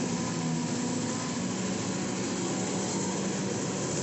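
Caterpillar 320 excavator's four-cylinder turbocharged diesel engine running steadily, a constant hum with no revving.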